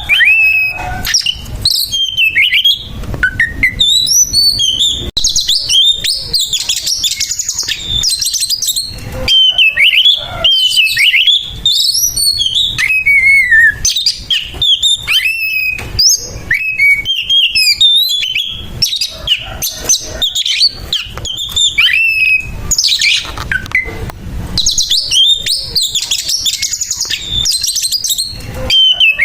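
Oriental magpie-robin (kacer) singing a rough, aggressive fighting song: a fast, almost unbroken stream of varied whistles, chirps, glides and rasping notes.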